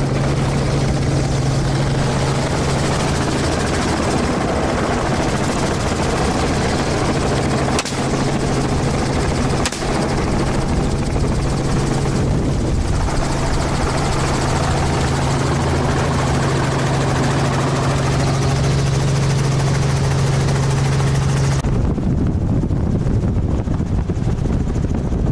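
Helicopter in flight heard from inside its open-door cabin: steady, loud rotor and engine noise with a low hum and wind rush. About 22 seconds in the sound changes, the low hum dropping out and the hiss growing fainter.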